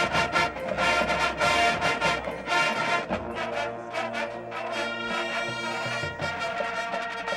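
Marching band playing, brass to the fore, with sharp accented hits for about three seconds, then softer held brass chords.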